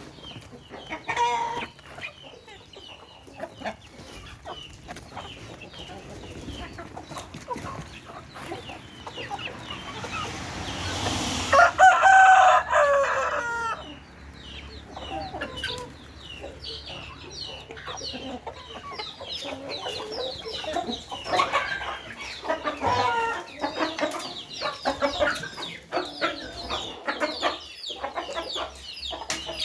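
Chickens clucking and calling as they feed, with many short clucks throughout. A rooster crows once about twelve seconds in, the loudest sound, lasting about two seconds.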